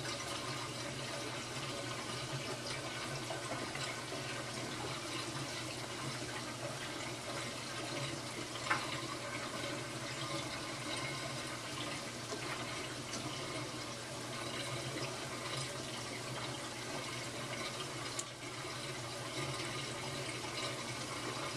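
Reef aquarium water running and splashing steadily in the tank and sump, with a steady low hum under it. A brief sharp click a little before halfway through.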